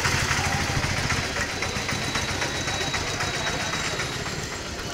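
Small vehicle engine running with a fast, even throb over a hiss of road and wind noise, slowly getting quieter.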